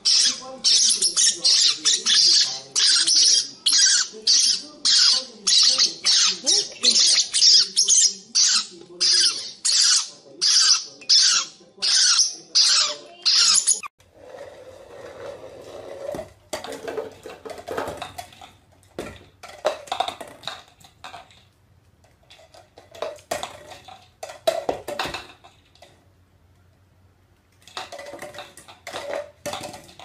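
Young parrotlets squawking over and over in loud, harsh begging calls, about two to three a second, as they are spoon-fed. About halfway through, this gives way to quieter scattered tapping and soft chirps.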